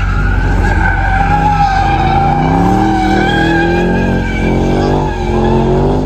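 Car tyres squealing in a long, steady screech as a car drifts, with its engine revving up and down underneath. The squeal fades near the end.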